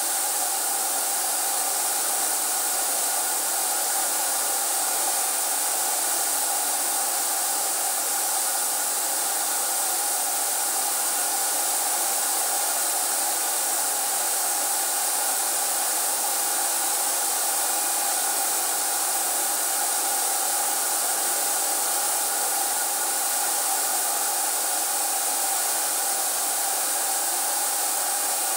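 Electric air blower running steadily: an even rushing hiss with a constant whine.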